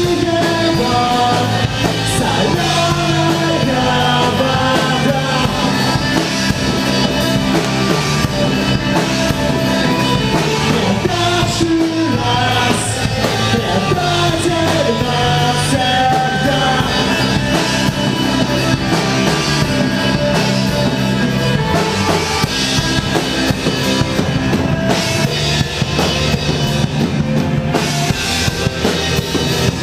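Punk rock band playing live: drum kit driving a steady beat under guitars and bass, with a wandering melodic line over the top.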